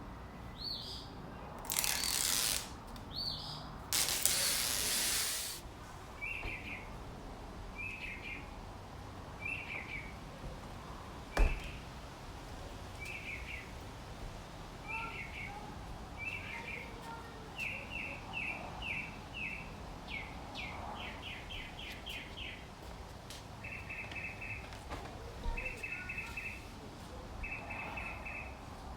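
A songbird chirping in short repeated calls, some run together into quick trills, over steady outdoor background noise. In the first few seconds there are two short harsh rasping noises, and about a third of the way through comes a single sharp knock.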